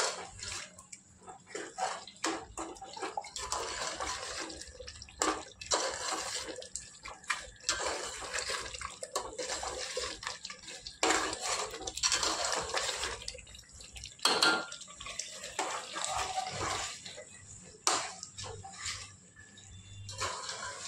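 Water splashing and sloshing in irregular bursts, as in washing by hand in a vessel, with sharp clicks and knocks of kitchen utensils.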